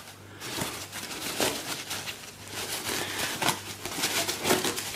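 Plastic bag and foam packing wrap rustling and crinkling as they are pulled off a toy steam engine, with a few light knocks.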